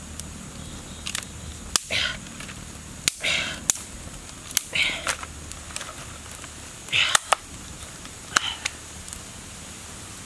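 Small wood campfire being kindled: several sharp snaps and cracks of twigs, with about five short breathy puffs a second or two apart.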